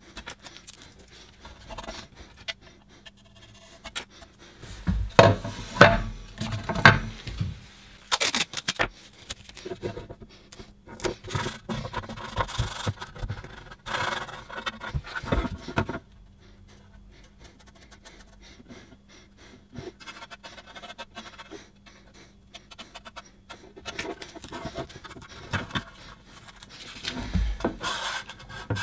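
Masking tape being pulled off the roll, torn and rubbed down onto a lawnmower fuel tank, with the tank shifting and knocking on the worktop, in several bursts of rubbing and scraping.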